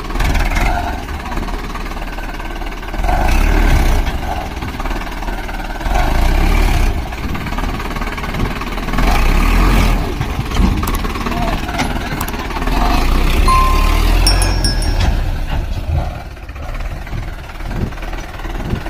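Sonalika DI-750 III RX tractor's diesel engine running under load, pulling a loaded trolley through soft ploughed soil. Its sound swells and falls every few seconds.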